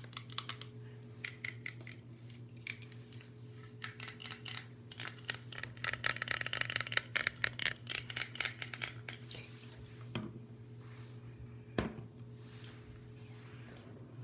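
Fingernails tapping and scratching quickly over a small plastic trophy's figure and base, a dense flurry of clicks through the middle, then a few separate taps near the end.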